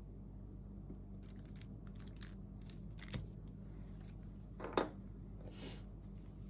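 Quiet handling sounds of a small plastic toy dinosaur being lifted out of salt dough and handled over wax paper: a run of small clicks and rustles, then one sharper knock a little before five seconds in and a short rustle after it.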